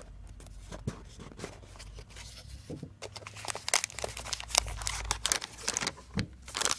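A cardboard watch box being opened, its lid sliding off with light scrapes and taps. From about three seconds in come denser crinkling and rustling as the watch is lifted out of its soft white wrapping.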